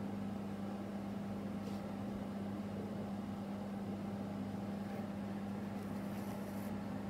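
Steady low hum with a constant pitch, with a faint brief rustle about six seconds in as Fireline beading thread is drawn through seed beads.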